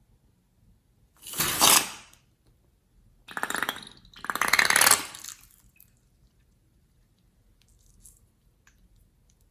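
Slime being squeezed and worked by hand: three crackling, squelching bursts, the last the longest, then a few faint ticks.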